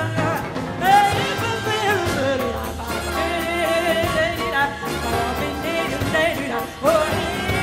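Female jazz vocalist singing wordless scat lines over a swinging big band of drums, upright bass, piano and horns.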